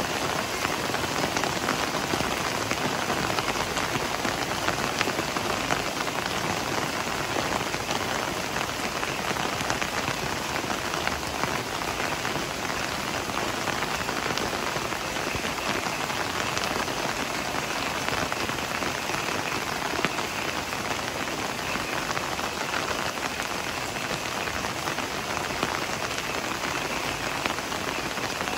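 Heavy rain falling steadily: a dense, even hiss of rain with many small drop ticks.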